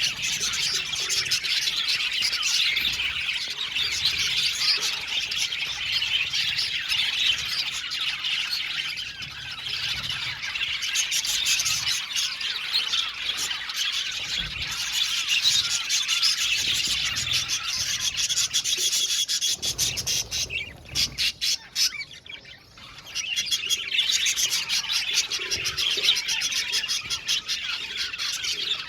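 A flock of budgerigars chirping and chattering, many birds at once in a dense, continuous warble. The chatter thins out briefly about twenty seconds in, then picks up again.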